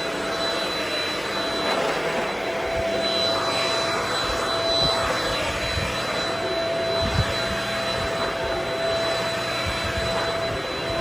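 Vacuum cleaner running steadily, an even rush of airflow with a constant high motor whine, and a few low bumps as it is pushed over the floor, the clearest about seven seconds in.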